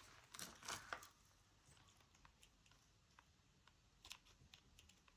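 Near silence, broken by faint small clicks and rustles of jewellery parts being handled: beading wire and a metal toggle clasp, with a short cluster in the first second and a few sharp ticks about four seconds in.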